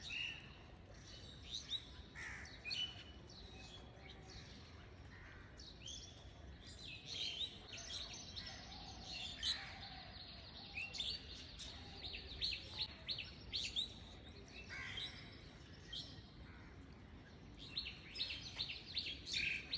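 Faint birdsong: several small birds chirping and calling in quick, short notes.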